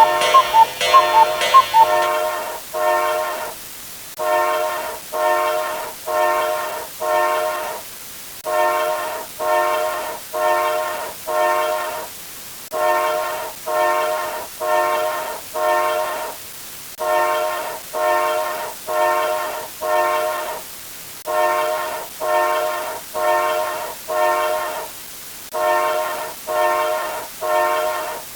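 Train horn sounding short blasts in groups of four, each group about three seconds long and repeating about every four seconds. It starts about two seconds in, after a rapid alarm-clock-like ringing.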